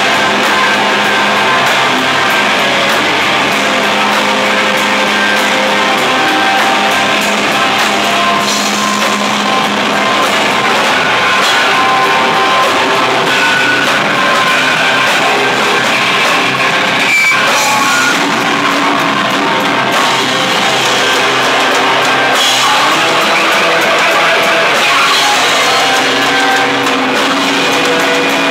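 Live rock band playing loud heavy rock: electric guitars and a full drum kit, dense and unbroken.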